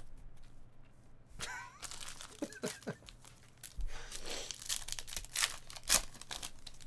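Trading card pack wrappers being torn open and crinkled, with the clicks and rustle of cards being handled, starting about a second and a half in.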